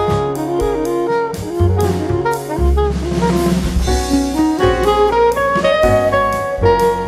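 Background instrumental music: a jazz tune with a saxophone-like lead over a drum kit.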